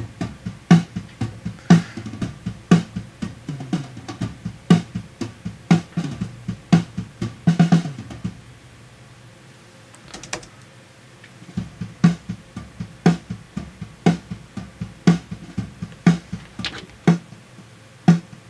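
Multitrack drum-kit recording played back over the control-room monitors, the snare gated, with overhead and ambience mics mixed in. The kit plays a steady beat of about two hits a second, with a dense fill about seven and a half seconds in, then a break of about three seconds before the beat comes back.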